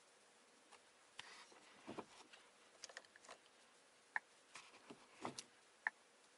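Faint finger taps and swipes on a Volkswagen Golf's infotainment touchscreen, with two short sharp clicks in the second half.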